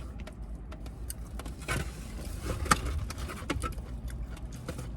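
Scattered light clicks and taps of takeout sushi containers and utensils being handled, one sharper tap about two and a half seconds in, over a steady low rumble.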